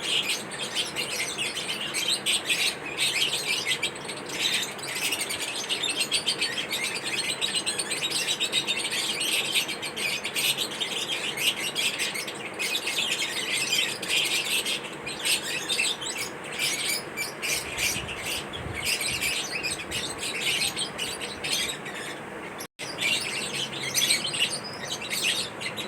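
Fischer's lovebirds chirping in a dense, continuous, high-pitched chatter, broken once by a split-second gap of silence about three quarters of the way through.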